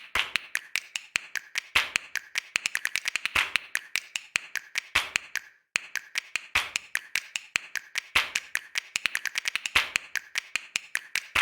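Rapid, irregular sharp clicks, several a second, with a brief pause about halfway.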